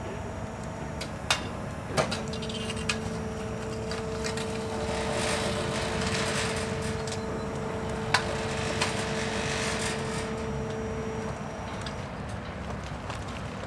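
A long pole knocking and breaking ice floes in icy water: several sharp knocks, the first few close together and two more later, with crunching and crackling ice in between. A steady hum runs under it for most of the stretch.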